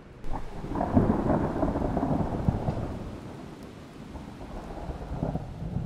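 Thunder rolling over steady rain: a rumble starts suddenly just after the beginning, is loudest about a second in and dies away over the next few seconds, then a weaker rumble builds near the end.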